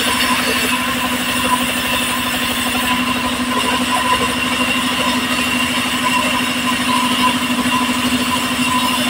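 Engine-driven band sawmill running steadily, a constant hum with a fine, rapid pulse, as a slab of log is fed through the band saw blade and sawn into a plank.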